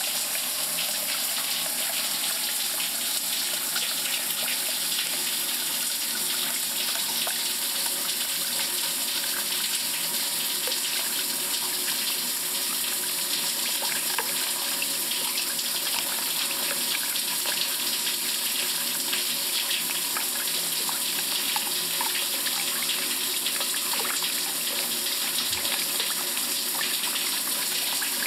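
Water running steadily from a tap into a basin, a constant splashing hiss.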